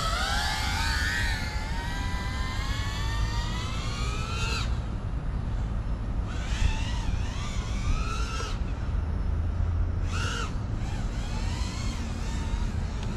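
FPV quadcopter's brushless motors whining, the pitch climbing steadily for the first four or five seconds before cutting off, then coming back in wavering rises and falls with the throttle and a short burst near the end. A steady low rumble runs underneath.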